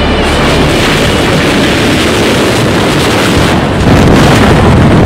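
Loud rushing of freefall wind buffeting the camera microphone during a tandem skydive. It grows louder near the end.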